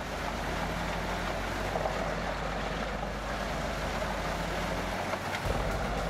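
Large wood chipper running steadily while chipping logs: an even rushing noise with a low engine drone underneath, which dips briefly about five seconds in.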